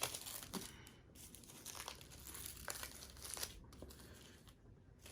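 Plastic shrink wrap crinkling and tearing as it is pulled off by hand, in faint, irregular crackles.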